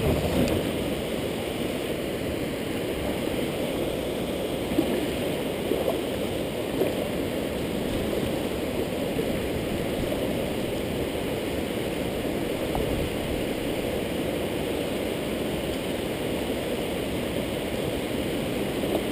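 Steady rush of water pouring over a wide dam spillway across the river. A few brief splashes or knocks stand out around five to seven seconds in.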